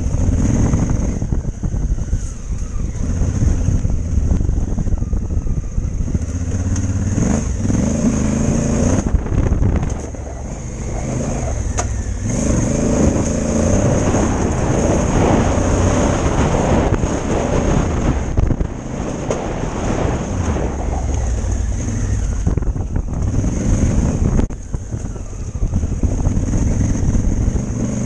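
Honda Africa Twin's parallel-twin engine under way on a dirt trail, its note rising and falling with the throttle, easing off briefly twice. A steady high whine runs underneath.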